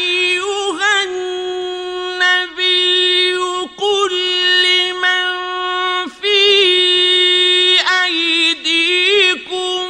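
A male reciter chanting Quran in a melodic style. He draws the syllables out into long held notes with ornamented pitch turns, broken by a few short pauses for breath.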